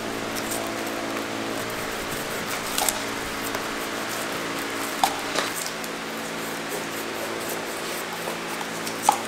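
Paintbrush dabbing and dragging wet resin into fiberglass mat, soft squishing and rubbing, with a few sharp clicks, loudest about five seconds in and near the end. A steady mechanical hum runs underneath.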